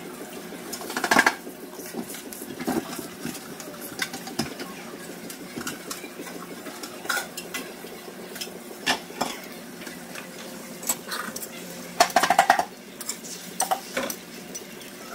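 Metal spatula and utensils clinking and scraping on a steel flat-top griddle, over a steady low hum, with two louder bursts of clatter, one about a second in and one late on.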